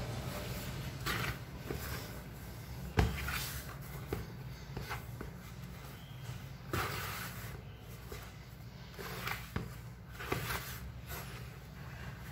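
A hand kneading and squeezing soft flour dough in a large bowl: irregular squishing and rustling, with occasional knocks against the bowl, the sharpest about three seconds in.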